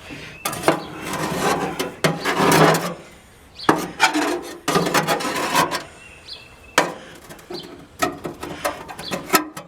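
A hand tool scraping heavy baked-on grease and rust off a metal grill drip pan: about five long scraping strokes with short pauses between them, then a run of short, quick scrapes near the end.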